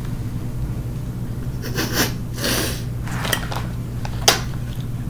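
Plastic water bottle handled in the lap: a couple of soft rustling scrapes about two seconds in and one sharp click a little after four seconds, over a steady low hum.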